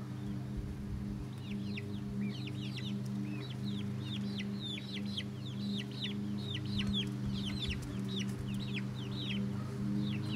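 A small flock of young chickens peeping and chirping over and over, many short high notes that each fall in pitch, starting about a second in. A steady low hum runs underneath.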